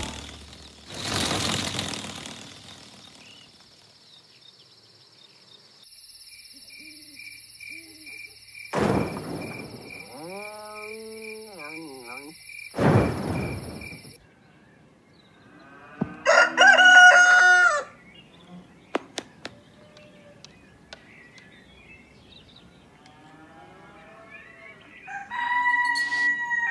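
A rooster crows once, loudly, about sixteen seconds in, amid a string of cartoon sound effects: a swoosh near the start, two thuds, and a steady high tone near the end.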